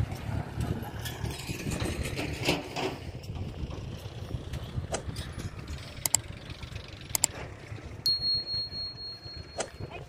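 Diesel engine running, its low rumble fading over the first few seconds as the tractor pulls its loaded trolley away, then a steady low engine rumble with a few sharp clicks. A steady high tone comes in near the end.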